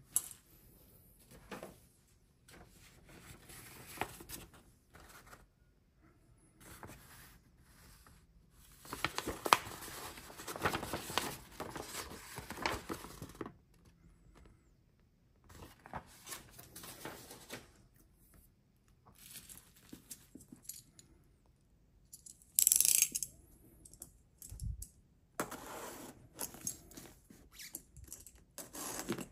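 Paper and a cardboard parcel being handled: intermittent rustling of printed sheets, densest about a third of the way in, a brief sharp rasp later, then fingernails scratching and picking at the packing tape on the box near the end.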